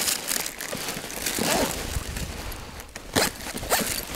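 Footsteps in snow, brushing through dry weed stalks, in uneven steps.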